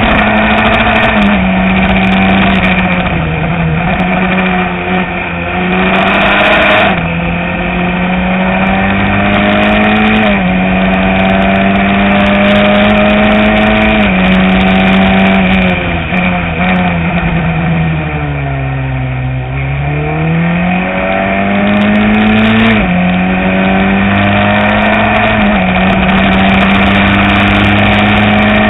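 Open-wheel single-seater race car's engine heard from the cockpit under hard acceleration, its pitch climbing through each gear and dropping sharply at every upshift. About two-thirds of the way through the revs fall away in a long slowdown and then climb again as it accelerates out.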